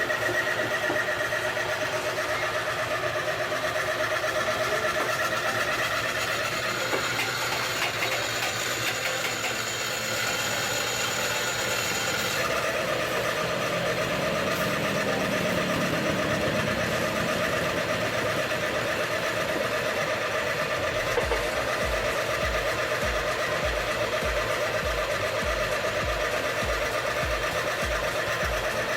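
A steady motor or engine hum whose pitch pattern changes about twelve seconds in. In the last third a low regular pulse comes in, about two a second.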